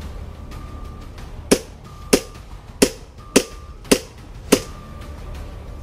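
M4-style airsoft rifle fired in single shots: six sharp cracks, one roughly every 0.6 s, starting about a second and a half in.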